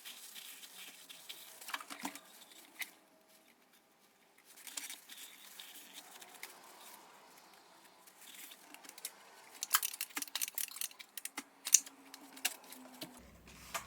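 Faint scattered clicks and short scrubbing rustles of small engine parts of a trimmer being handled and cleaned, busier in the second half.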